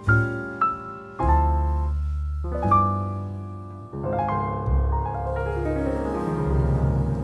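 Background music: a gentle solo piano piece, single notes and chords struck over low bass notes.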